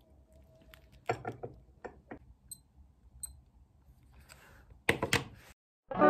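Quiet tabletop handling of a glass mug and glass saucer: scattered light clicks and knocks, with two short, high glass clinks in the middle. The sound drops out just before the end.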